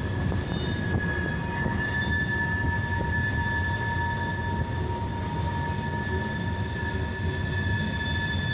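Freight train cars rolling past at a grade crossing: a steady rumble of steel wheels on the rails, with a steady high-pitched wheel squeal over it.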